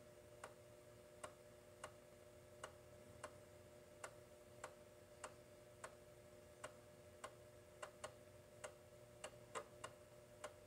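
TEAC USB floppy drive reading a newly inserted floppy disk: a faint, steady whir from the spindle motor, with a light click from the head stepping about every half second to second.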